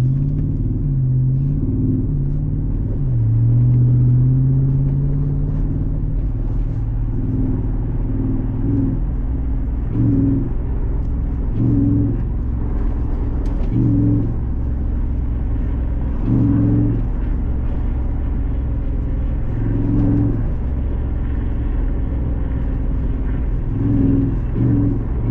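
Jeep SRT8's freshly rebuilt Hemi V8, being broken in, running under way as a steady drone. The engine note wavers in the first second and swells for a few seconds soon after. Then it rises briefly about every two seconds.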